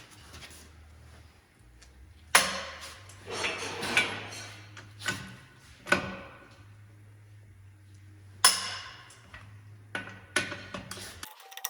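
Several sharp metal clanks and knocks with a ringing tail, irregularly spaced, from hand tools and metal parts being worked in a shop during a tractor wheel change. A low steady hum runs underneath. Near the end the sound cuts to music.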